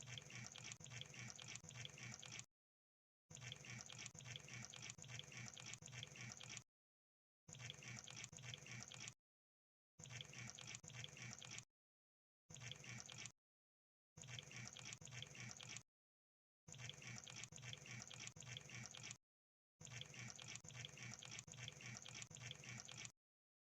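Crab sound effect: faint, rapid clicking in eight bursts of one to three seconds each, separated by short gaps of dead silence.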